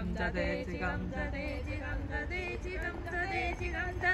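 A woman singing a wavering melody, with music and a steady low rumble beneath.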